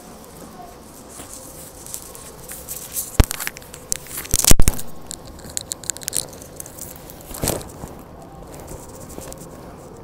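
Close crackling rustles and knocks of a handheld phone being handled, with a loud burst about four and a half seconds in and single sharp clicks before and after, over a steady low hum inside a stopped subway car.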